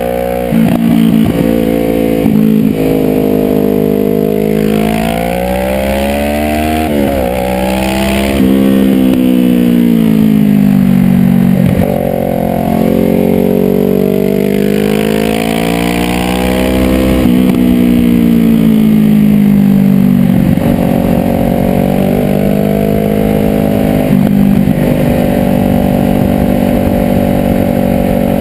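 Motorcycle engine heard onboard under hard riding. Its pitch climbs as it accelerates, drops briefly at gear changes, then falls as the throttle eases off, and this repeats several times. Wind rushes over it throughout.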